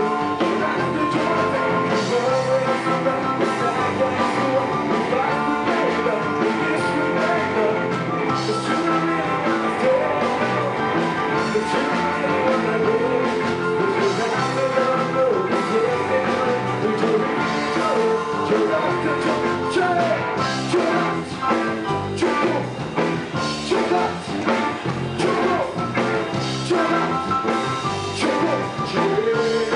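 Live rock band playing: distorted electric guitars, bass and drum kit, with a male singer on lead vocals.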